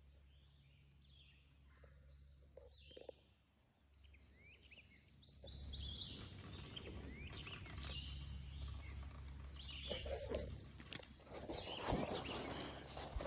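Birds chirping in a wooded swamp: many short high calls, busier from about halfway through. Near the end, rustling and a few clicks as the phone is handled against a sleeve.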